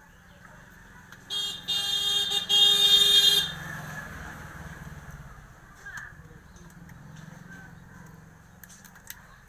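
A vehicle horn honking in three quick blasts, the last one the longest. A faint low hum runs underneath.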